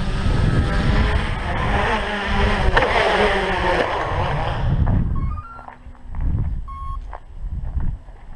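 Tricopter's brushless motors and propellers whining, the pitch shifting with throttle, then spooling down and stopping about five seconds in as it sets down. A few short electronic beeps climbing in pitch follow.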